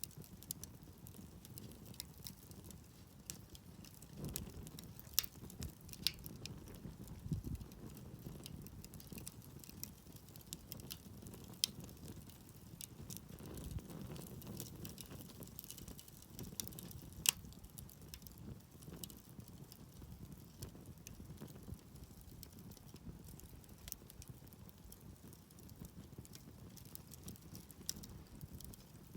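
Wood campfire crackling, with scattered sharp pops and snaps over a low, steady rumble of the flames.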